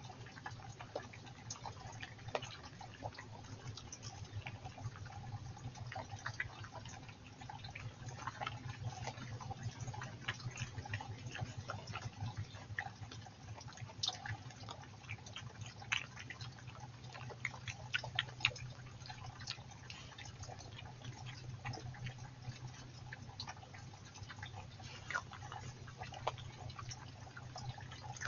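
Small woodland stream trickling, with scattered drips and plinks, and a European badger snuffling and chewing as it forages for worms.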